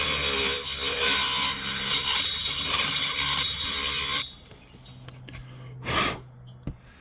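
High-speed rotary grinder with a carbide burr cutting the lower transfer port of a Husqvarna 266SE chainsaw cylinder, running steadily and then stopping about four seconds in. A low hum remains, with a short knock about six seconds in.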